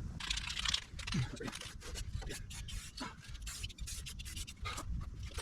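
Irregular light scratching and scraping of a hand deburring tool working around the edges of a hole in metal.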